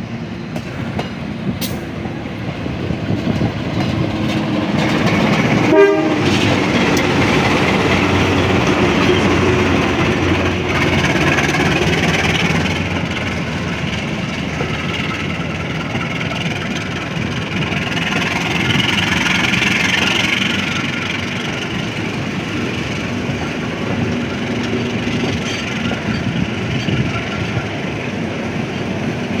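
KAI diesel-electric locomotive passing close by, its sound building to a peak about six seconds in, followed by a train of passenger coaches rolling past with wheels clattering over the rail joints.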